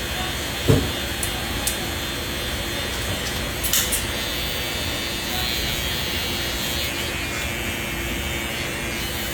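Electric hair clippers buzzing steadily. There is a short thump under a second in and a brief hiss a little before four seconds in.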